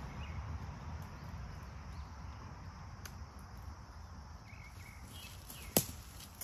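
Quiet woodland background, a steady low rumble with a few faint short chirps. Near the end comes one sharp crunch of a footstep on dry leaf litter.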